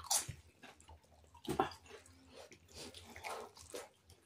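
Eating by hand: fingers squishing and mixing rice and curry on a plate, with chewing and lip smacks in a few short wet bursts.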